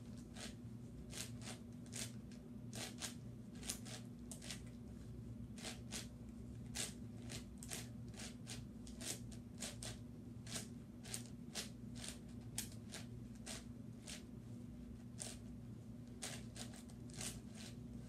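YuXin 9x9x9 speed cube being turned by hand: irregular plastic clicks and clacks of its layers snapping round, several a second, over a steady low hum.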